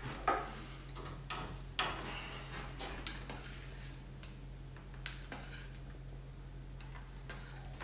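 A utensil clinking and knocking against a stainless steel saucepan as fresh pasta is stirred in boiling water: scattered sharp clicks over the first five seconds or so, over a steady low hum.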